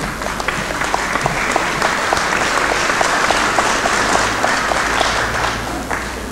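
Audience applauding, swelling about a second in and fading out near the end.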